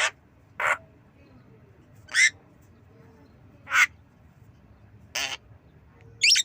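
Javan myna giving six short cough-like calls, spaced about one to one and a half seconds apart, as it learns to imitate a cough. The last call sweeps upward in pitch.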